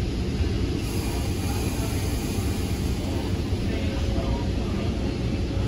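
Steady low rumble of a Tri-Rail commuter train heard from inside a passenger coach as it rolls along a station platform.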